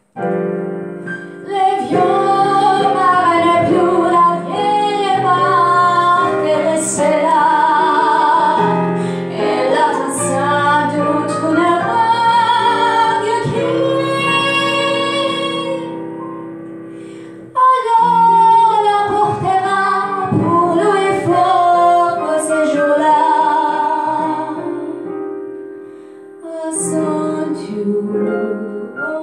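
Woman singing the coda of a song into a microphone with live digital-piano accompaniment, long held notes with vibrato over sustained chords. A short break a little past the middle is followed by a loud new phrase.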